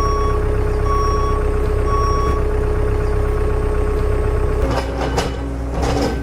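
Truck reversing alarm beeping three times, about once a second, over a steady low vehicle drone. A steady tone in the drone stops about four and a half seconds in, followed by a few sharp clicks near the end.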